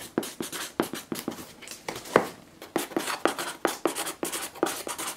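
Handwriting with a pen on a cardboard box: a quick, irregular run of short scratching strokes.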